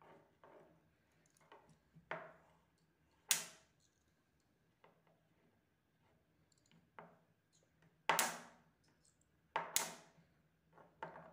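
Small magnetic balls clicking as they snap together and are pushed across a cardboard game board: scattered sharp clicks, the loudest about three seconds in and a cluster of loud ones between about eight and eleven seconds.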